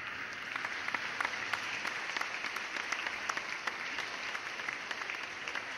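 Steady applause: many hands clapping at once in an even, unbroken patter.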